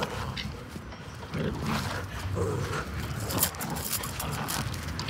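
Dogs growling in a tug-of-war over a bundle of hair weave, in low rumbles that come and go, with a few crackling rustles a little past the middle.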